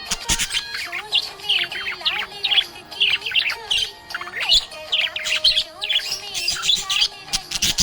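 Budgerigar chirping and warbling in a rapid run of short, high chirps throughout, with a background tune playing underneath.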